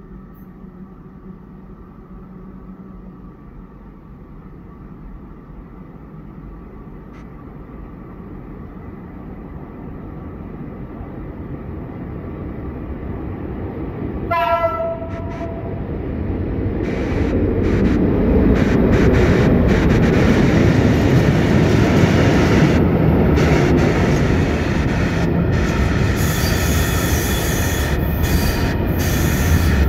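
EU07-class electric locomotive hauling a train of open coal wagons, approaching and passing close by, its rumble growing steadily louder. About halfway through it gives one short horn blast, then the wagons roll past with a heavy rumble and wheel clatter, and a high wheel squeal comes in near the end.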